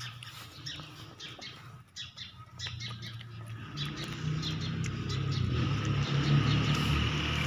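Birds chirping in many short, quick, high chirps through the first half. After that, a low rumble grows louder and covers them.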